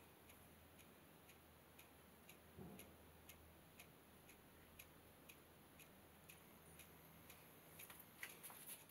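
Near silence with faint, evenly spaced ticking about twice a second. There is a soft brush of sound about two and a half seconds in, and a few light irregular clicks near the end.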